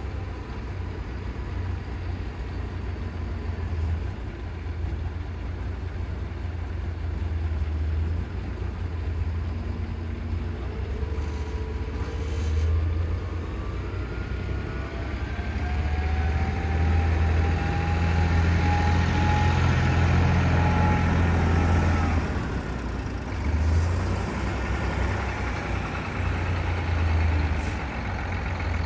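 Tractor engine running, with a steady low drone. From about eleven seconds in it works harder, with a whine that rises and then holds, and it drops back after about twenty-two seconds.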